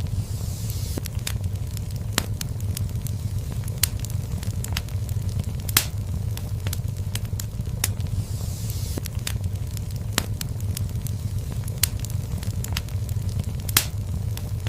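Fire in a fireplace crackling: irregular sharp pops over a steady low rumble of flames, with two louder pops about six seconds in and near the end. Brief hissing comes twice.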